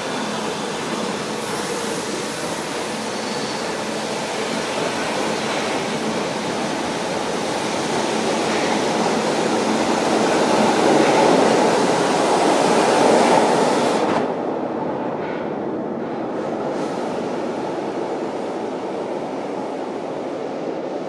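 São Paulo Metro Line 1 stainless-steel train pulling out of the station. Its running noise builds as it gathers speed, drops sharply about fourteen seconds in as the last car clears, and the train then fades away down the line.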